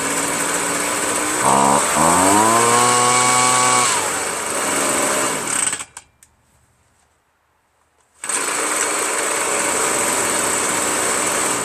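Ryobi 25.4cc two-stroke backpack leaf blower engine idling, revved up for a couple of seconds, then dropping back and cutting out abruptly near the middle: the repaired kill switch shutting it off. About two seconds later it is running again at a steady idle.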